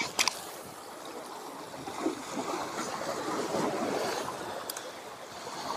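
Sea water washing and swirling over shoreline rocks, swelling for a couple of seconds in the middle, with a sharp click just at the start.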